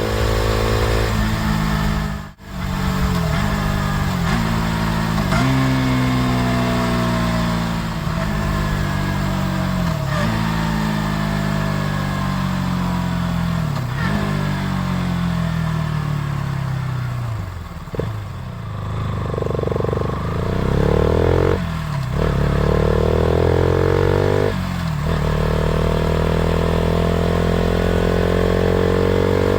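KTM RC 200's single-cylinder engine and exhaust running under load, its pitch repeatedly rising and falling as it is revved and shifted, with a brief dropout about two seconds in and short breaks in the note later on.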